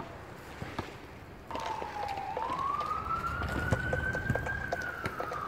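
Siren wailing: one tone comes in suddenly about a second and a half in, slowly rises in pitch, then falls again. Scattered sharp clicks and taps of stick, puck and skates on the asphalt rink sound beneath it.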